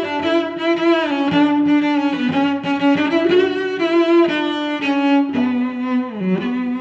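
Background instrumental music: a slow melody of held notes.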